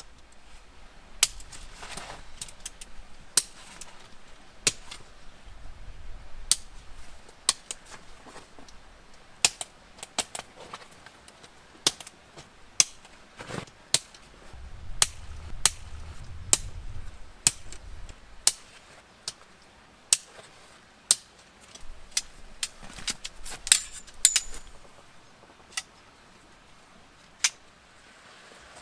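Sharp metallic clicks and clinks, spaced irregularly about once a second, from the metal poles and fittings of a canvas swag being fitted together during setup.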